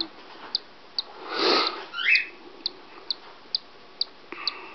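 Cockatiel chick peeping from inside its cracked egg as it hatches: short high peeps about twice a second. About a second and a half in there is a brief burst of noise, and just after it a short rising squeak.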